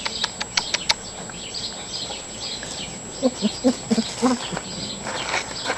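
A run of about five short, low calls from an animal a little past the middle, with a few sharp clicks near the start and faint high chirps throughout.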